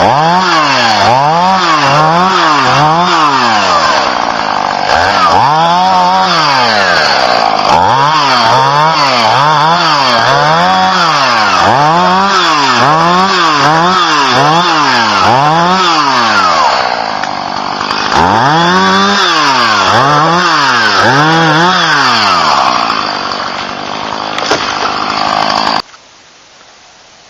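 Two-stroke chainsaw run in quick repeated throttle surges, its pitch rising and falling more than once a second. It settles briefly to a lower note about two-thirds of the way through, revs up again, then cuts off abruptly near the end.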